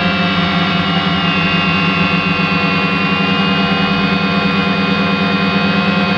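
DJI Phantom quadcopter's motors and propellers whirring steadily while it hovers, heard close up through the onboard camera's microphone.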